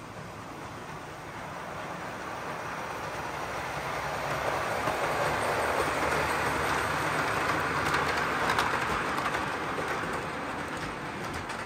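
On30 model freight train rolling past on the layout track: a steady rattle of metal wheels on rail that grows louder as the cars come by, is loudest with a few sharp clicks about six to nine seconds in, then eases off.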